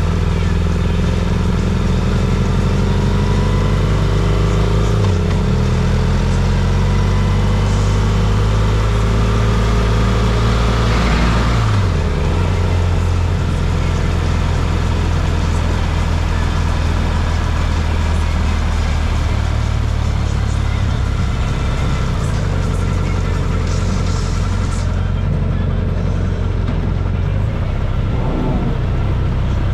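A motor vehicle engine running steadily with road noise. The engine note changes pitch about five seconds in and again about twelve seconds in.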